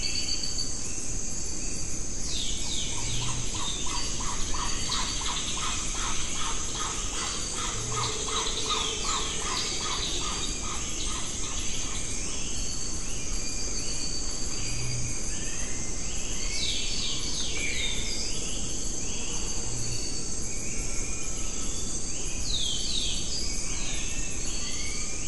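Tropical rainforest ambience: a steady high insect drone with many birds calling in short, repeated downward-sweeping notes, and a fast run of pulsed calls from about 3 to 12 seconds in.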